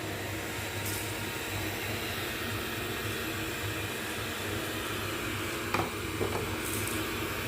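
Robotic vacuum cleaner running with a steady whir and hiss, with two short knocks close together about six seconds in.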